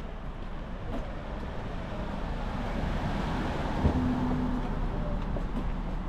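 A vehicle passing, its noise swelling toward the middle and easing off, with a single sharp knock and a brief low hum about two-thirds through.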